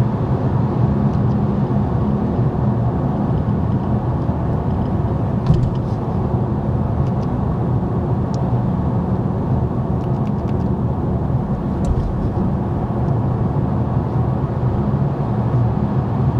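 Steady road and wind noise inside the cabin of a BMW i5 M60 driving at speed, with a low hum that is some kind of resonance frequency. The hum is strongest at first, fades about two seconds in and comes back near the end.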